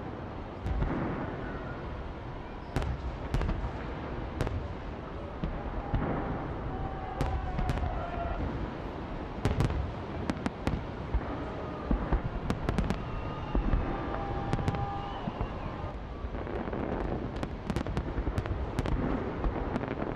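Fireworks display: a continuous rumble of aerial shell bursts with many sharp bangs scattered irregularly throughout.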